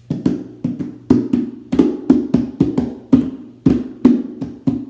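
A plastic bucket drummed on with flat hands: hollow hits in a quick steady rhythm, about four a second.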